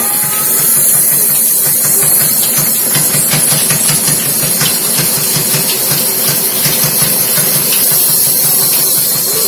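Large sawmill band saw running, a steady high hiss over a fast, uneven low rattle, as a big log is pushed through on its carriage.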